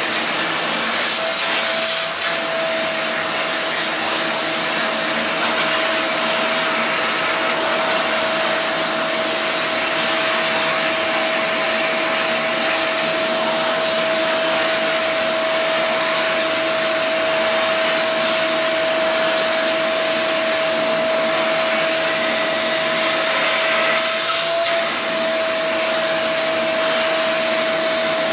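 Vacuum cleaner running steadily: a constant rush of air with a high motor whine, which wavers briefly twice, about two seconds in and near the end.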